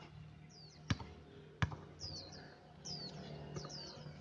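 A basketball bounces twice on a hard outdoor court, about a second in and again just over half a second later. Short, high, falling chirps come and go in the background.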